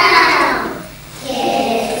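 A group of young children singing together; one sung phrase fades about a second in and the next begins.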